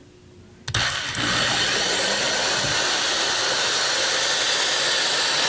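Electric drill with a 1/8-inch bit starting about a second in, then running steadily as it bores a pilot hole through drywall into a wall stud.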